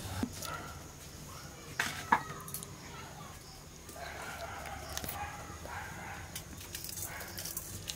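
Chickens clucking on and off, with two sharp knocks about a third of a second apart about two seconds in.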